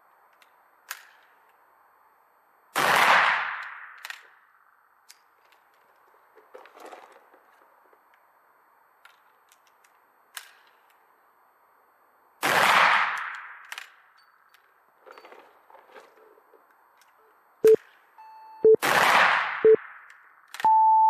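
Three shots from an M1866 Wänzl breech-loading rifle firing 14x33R black-powder cartridges, each a sharp report with a ringing echo. Between shots there are small metallic clicks of the breech and hammer being worked during reloading. Near the end, three short timer beeps and then a longer, higher beep mark the end of the minute of rapid fire.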